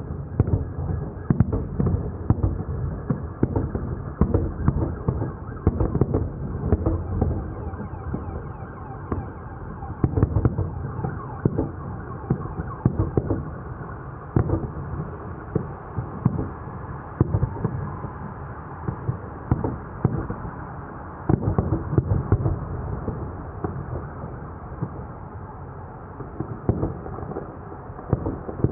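Fireworks display: an irregular string of booms and bangs, sometimes several a second and sometimes a second or two apart, over a continuous low rumble.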